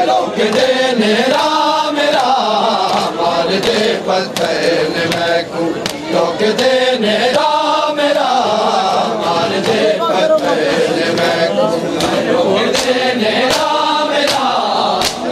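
A group of men chanting a noha, a Shia lament, in unison, with scattered sharp slaps of chest-beating matam.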